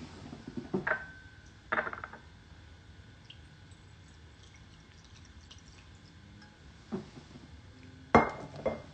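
A few scattered knocks and clinks from hard objects being handled, two of them with a brief ringing tone like glass or a dish being touched. The loudest pair comes near the end.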